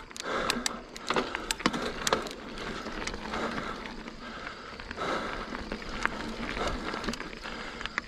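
Mountain bike rolling over a dirt trail: tyres on dirt with scattered clicks and rattles from the bike, and the rider breathing hard after a jump run.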